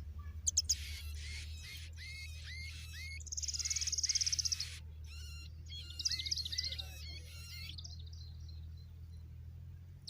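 Small birds chirping in short, sharp calls, with a fast high trill lasting about a second and a half near the middle and another flurry of chirps a little later. A steady low hum runs underneath.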